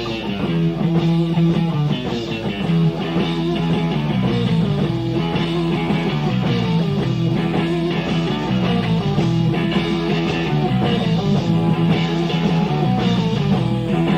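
Live rock band playing an instrumental passage, with electric guitars and bass over drums, in a rough audience-style bootleg recording.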